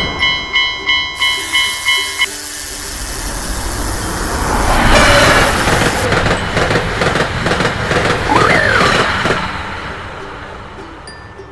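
Railroad-crossing alarm bell ringing at about three strikes a second, stopping about two seconds in. Then a train passes, its rumble swelling to its loudest about five seconds in and fading away toward the end.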